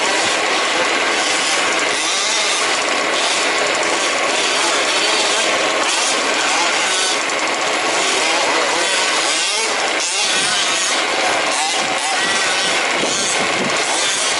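Several 1/5-scale RC trucks' small two-stroke petrol engines buzzing around a race track, their pitch rising and falling as they rev up and back off through the laps.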